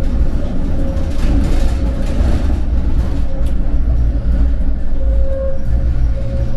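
Vario LF2+ tram running on the rails: a loud, steady low rumble with a thin, steady hum and a few faint clicks.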